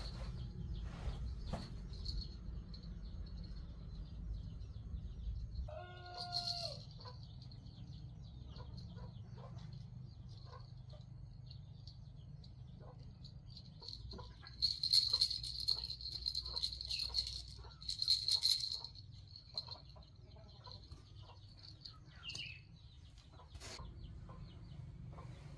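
Chickens clucking, with one longer pitched call about six seconds in and two louder noisy bursts near the middle, over a steady high tone.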